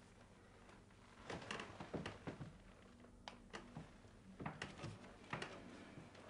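Soft rustling and brushing of bedding, a string of brief scrapes and rustles starting about a second in, over a faint room hum.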